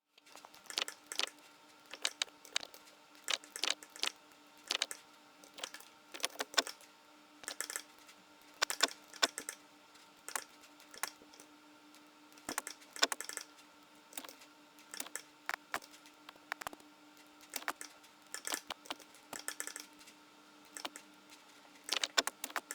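Footsteps on rocks sound effect: irregular crunching steps on loose stone, somewhat exaggerated, over a faint steady hum.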